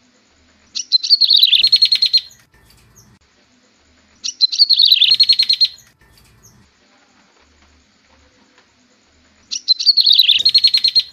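Yellow-bellied prinia (prenjak tebu) song played as a looped lure call: three phrases a few seconds apart, each a couple of quick opening notes running into a fast, high trill about a second and a half long.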